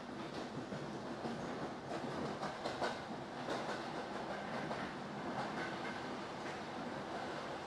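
Berlin S-Bahn electric train running along the track, heard from inside the carriage: a steady rumble of wheels on rails, with a few clickety-clack knocks from rail joints about two to three seconds in.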